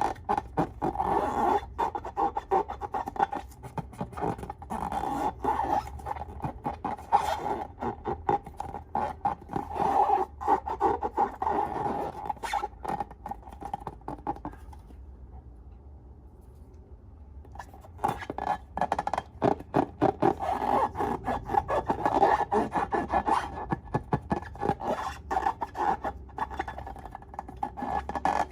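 Slime being squished and worked by hand, making dense, rapid sticky clicks and crackles. It goes quiet for a few seconds about halfway through, then carries on.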